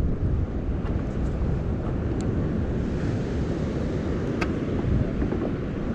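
Wind buffeting the camera microphone, a steady low rumble, with surf washing beneath it. Two brief clicks, about two seconds in and again near the middle.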